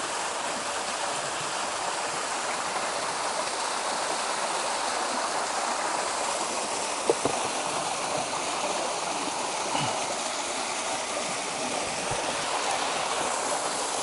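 A waterfall's steady rush of falling water, with a couple of faint knocks about seven and ten seconds in.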